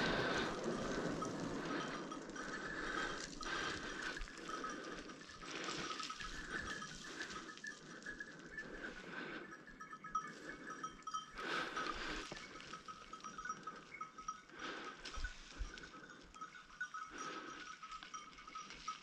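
Small bells jingling faintly in the distance, coming and going, with scattered short rustling noises.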